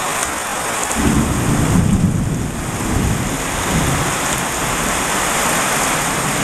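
Heavy tropical downpour hissing steadily, with a low rumble of thunder starting about a second in and fading over a few seconds.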